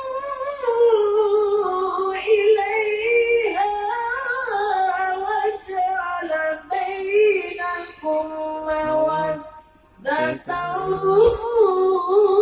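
A cucuk lampah singing a chant into a microphone in a high, wavering voice, with long notes bent up and down. There is a short pause for breath about ten seconds in.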